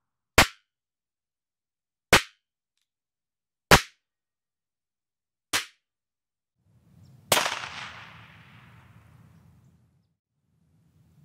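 Starter's pistol firing blanks as impulses for recording room acoustics: four short, dry cracks about every second and a half to two seconds, then a fifth about seven seconds in that rings on for about two seconds over a low background rumble.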